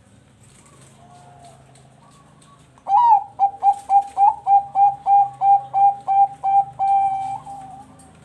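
Bangkok perkutut (zebra dove) singing. After a few soft coos, a loud song starts about three seconds in: a quick run of about a dozen short coo notes, roughly four a second, ending in one longer drawn-out note.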